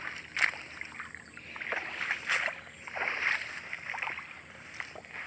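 Footsteps wading through shallow floodwater and wet grass: irregular sloshing and swishing splashes, bunched about half a second in, around two seconds and around three seconds.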